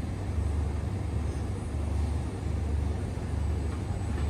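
Steady low rumble of outdoor street background noise, with no distinct events.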